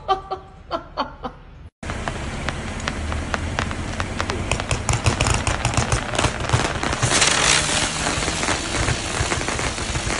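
Fireworks going off: a rapid, dense string of crackling pops that starts suddenly about two seconds in, with a louder hiss a little past the middle.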